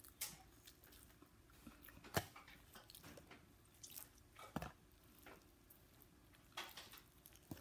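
Crispy fried chicken being torn apart by hand and eaten: faint crackles of the crust and chewing. A few short sharp clicks stand out, the loudest about two seconds in.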